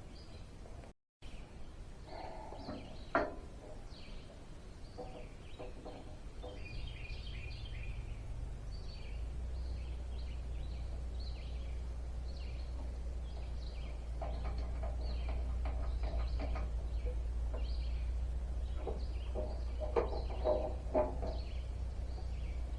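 Small birds chirping over a low steady rumble that comes in about nine seconds in, with a sharp knock about three seconds in and a few light knocks near the end.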